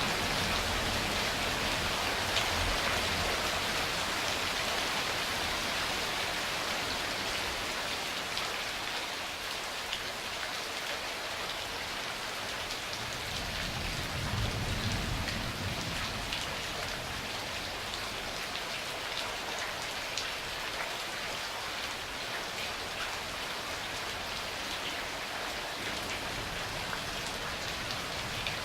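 Steady rain pattering on surfaces, with a low rumble of distant thunder at the start and again about halfway through.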